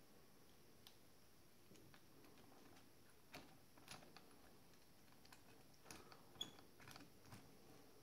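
Faint, scattered small clicks and taps of metal engraving-vise parts and a wrench being handled, a few of them more than a second apart and a closer cluster in the second half.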